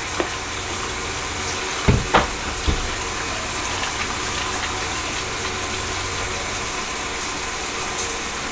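Bathroom sink tap running steadily into the basin during face washing, with a few light knocks about two seconds in.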